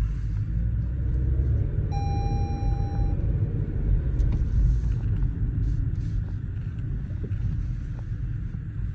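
Lexus UX being driven, heard from inside the cabin: a steady low engine and road rumble, running smoothly with no odd noises. A single electronic beep lasting about a second sounds about two seconds in.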